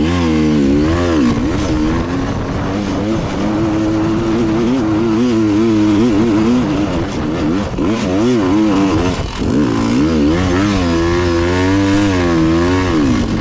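Dirt bike engine revving up and down continuously as the throttle is worked on a steep, rough trail climb, with a brief drop in revs about nine seconds in.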